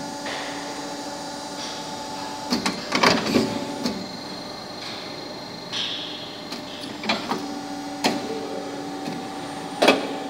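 SB38CNC-TSR-3A CNC tube bender working through a handlebar bend: a steady hum from its drives, with short hisses and metallic clanks as the clamps and bending die close, swing and release on the steel tube. The loudest clanks come about three seconds in and again near the end.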